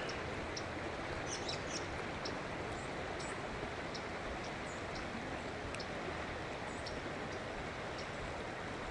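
Steady rush of a river's current running over shallow riffles, with small birds giving short, high chirps scattered throughout.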